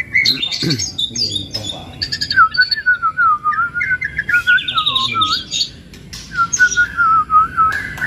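White-rumped shama (murai batu) singing a varied song: rapid trills and sharp clicks over a long, wavering whistle, with a short pause about three quarters of the way through.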